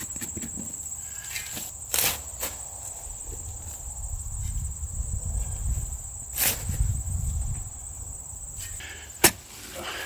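Round-point shovel digging a post hole in fine, sandy soil. The blade makes sharp strikes into the ground about 2 seconds in, again midway, and loudest near the end, with scraping of dirt in between.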